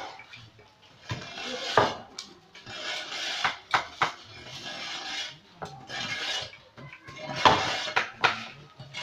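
Knives scraping and rasping in repeated, irregular strokes with sharp metallic clicks, as men skin and cut up a slaughtered sacrificial animal.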